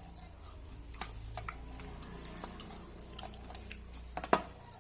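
Eating from a plate: scattered light clicks and clinks of food being scooped from the dish, with one sharper clink about four seconds in.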